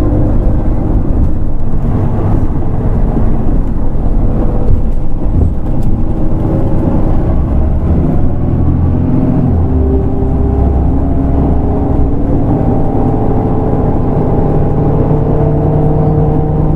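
Mitsubishi Fuso Aero Star city bus's six-cylinder diesel engine running under way, its note climbing slowly through the second half as the bus gathers speed.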